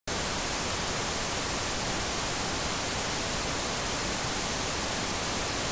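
Steady static hiss, like a television's white-noise static, cutting in at once and holding even.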